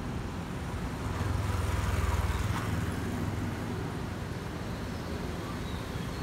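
Steady, distant rumble of a receding Boeing 737-800 jet airliner's CFM56 engines, mixed with road traffic noise, swelling for a couple of seconds about a second in before easing back.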